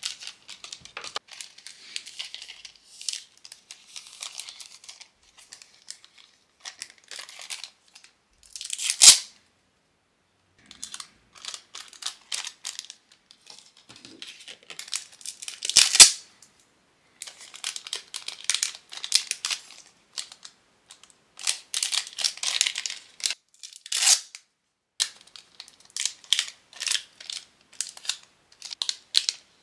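Clear plastic sleeves and paper packaging crinkling and rustling in short bursts as beaded phone charms on backing cards are handled and slid into them. There are two louder, sharper crackles, one about nine seconds in and one about sixteen seconds in.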